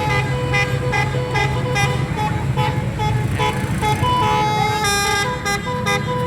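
Telolet multi-tone horn playing a stepping melody of held notes over a steady low drone, with short clicks recurring at an even pace of about two a second.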